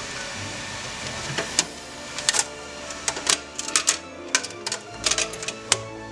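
Background music, with a run of sharp, irregular clicks and cracks as a 3D-printed plastic part is gripped and pried off the printer's bed.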